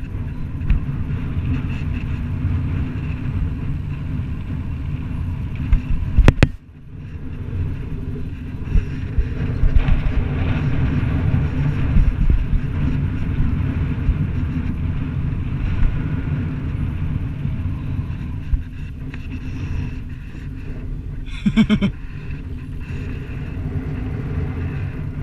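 Wind buffeting an action camera's microphone, a steady low rumble, mixed with the noise of a fat bike rolling over sand. There is a sharp knock about six seconds in.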